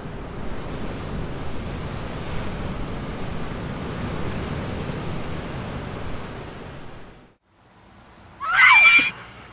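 A steady low rushing ambience cuts out to near silence. About a second later comes a short, loud, high-pitched scream as a face looms at the car window: a jump-scare.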